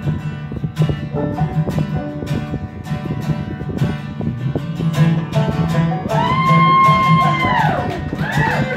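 Live folk music: acoustic guitar strummed with a banjo picking along, an instrumental passage with no singing. A long held high note sounds over it about six seconds in and glides down near the end.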